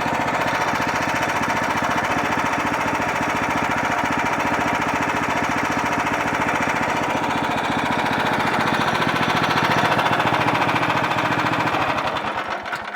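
A sawmill's engine runs steadily with a fast, even pulse while the saw cuts through a hard black walnut log. Near the end it winds down and fades out as the cut finishes.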